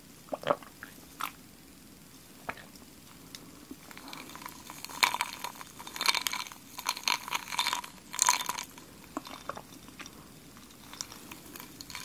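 Close-miked drinking of café au lait from a glass: sips, swallows and mouth sounds. Scattered clicks at first, then a busy run of crisp, ringing clicks and crunches in the middle.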